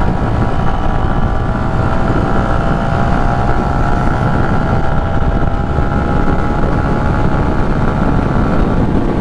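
Small motorcycle engine held at a steady high cruising speed, a steady whine over heavy wind rumble on a helmet-mounted microphone.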